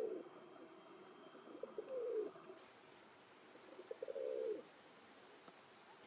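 Domestic pigeons cooing: three low coos about two seconds apart. Each opens with a few quick pulses and then glides downward.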